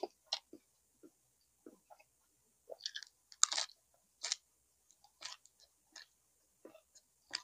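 A person chewing and eating, with scattered wet mouth smacks and crunches, the loudest a little past halfway.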